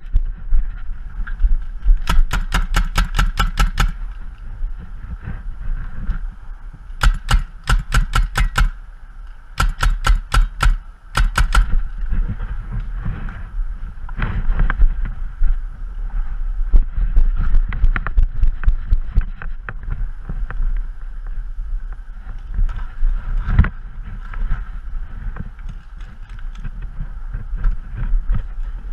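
Paintball marker firing three rapid strings of shots, about five a second, in the first twelve seconds, with one more single shot later. Wind and handling rumble on the microphone underneath.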